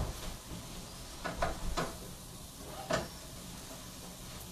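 A few short, light knocks and clatter of kitchen items being handled, about a second in and again near three seconds in, over a low steady background.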